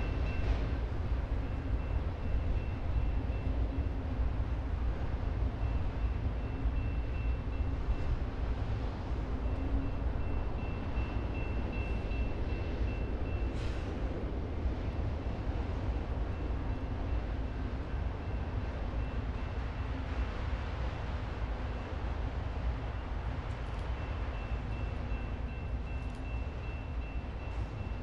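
Freight train rolling by: a steady low rumble of wheels on rail that slowly fades.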